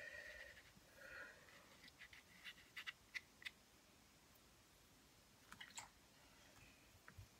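Near silence with a brief faint squeak at the start, then scattered light taps and clicks in two small clusters: a paintbrush dabbing paint onto a textured painting board.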